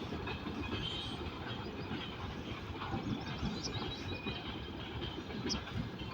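Service train hauled by a TEP70 diesel locomotive moving along a disused siding: a steady rumble of wheels and cars on the track.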